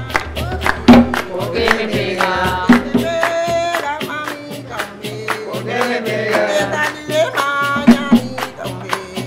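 Live bullerengue: a woman singing the lead over hand clapping and drums that keep a steady beat of about three strikes a second.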